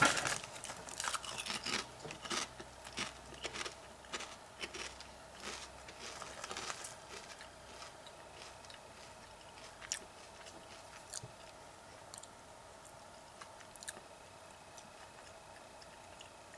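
A person chewing crunchy potato chips: a quick run of crunches that thins out after about seven seconds to a few scattered, fainter crunches.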